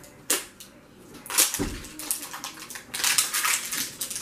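Plastic wrapping on a Pikmi Pops toy crinkling and tearing as it is peeled off by hand, in several rustling bursts.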